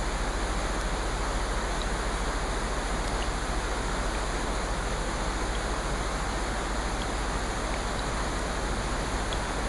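Steady, even hiss of rain with no swells or breaks, with faint light ticks scattered through it.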